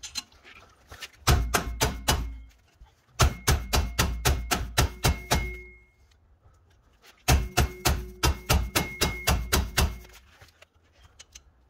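A hammer striking a rusted-on rear brake drum of a 2014 Nissan Versa to break it loose, in three runs of rapid blows about four or five a second, each with a metallic ring.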